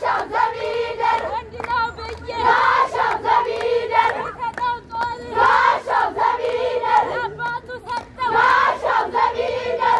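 A group of girls singing and calling out together in a Shaday festival song, with hand clapping scattered through.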